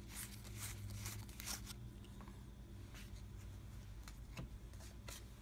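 Faint rustling and light ticks of playing cards and packaging being handled, mostly in the first second and a half, over a steady low hum.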